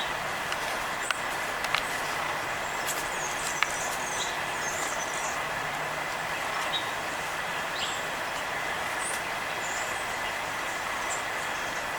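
Steady rush of background traffic noise, with short high chips from small songbirds, sparrows and towhees feeding, scattered throughout, and a few sharp ticks in the first few seconds.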